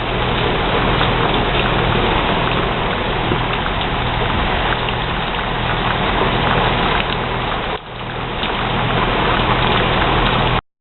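Heavy tropical-storm rain falling steadily, a dense even hiss of downpour, with a brief dip in level about eight seconds in.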